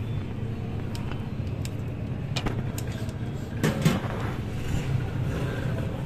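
Steady low rumble of street traffic, with a few light clinks of ceramic bowls and spoons; the loudest cluster of clinks comes a little under four seconds in.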